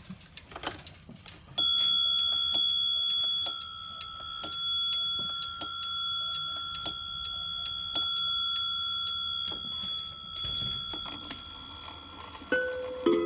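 A mechanical clock striking seven on a bright bell, about one stroke a second, each stroke left ringing so that the tone fades out over a few seconds after the last one. Soft clock ticking runs underneath, and near the end a second clock begins a lower-pitched chime of several notes.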